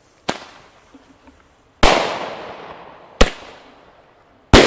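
PyroFactory Color Thunder King single-shot salute fireworks going off. A pop as a shot lifts off, then about a second and a half later a loud bang that echoes away. After that comes a sharp crack, and near the end another loud, echoing bang.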